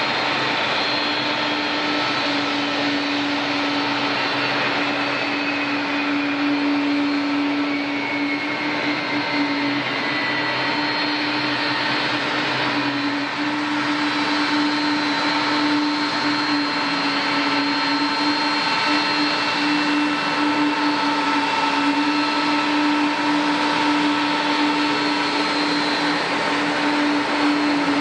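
Boeing 777-200 jet engines running steadily at low power: a constant hum and whine, with a higher whine slowly falling in pitch over the first ten seconds or so.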